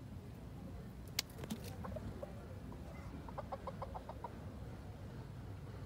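Rooster clucking: a quick run of about eight short clucks about three seconds in. A single sharp click sounds about a second in.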